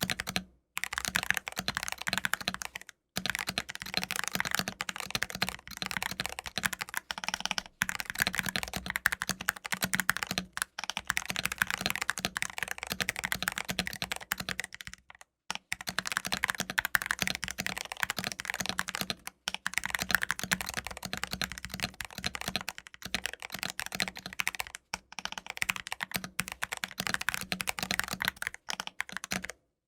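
Mechanical keyboard with TTC Heart switches being typed on fast, dense runs of key clacks broken by brief pauses every few seconds; the typing stops just before the end.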